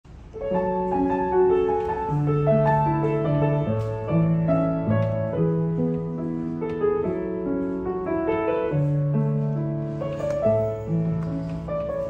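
A 1980s Yamaha U3A upright piano being played: a slow, flowing melody with chords over held bass notes, starting about half a second in.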